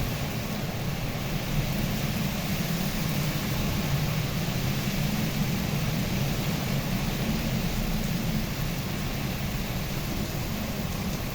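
Heavy rain with strong wind: a steady, even rushing hiss with a low rumble under it.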